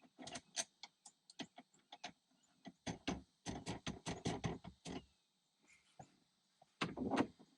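Irregular clicks and clinks of a wrench working the 17 mm retaining nut on the truck's gear shifter, in quick runs, with a louder cluster near the end.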